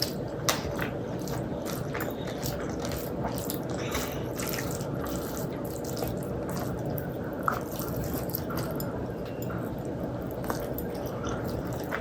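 Close-miked wet eating sounds from a meal of rice and dal: a constant run of small squishy clicks and smacks, with two sharper clicks about half a second in and about seven and a half seconds in.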